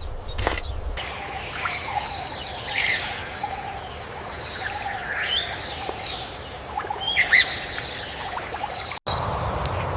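Birds chirping and calling with short rising and falling notes over a steady outdoor background, with a few clicks or rustles in the first second. Near the end the sound cuts abruptly to a steady hiss.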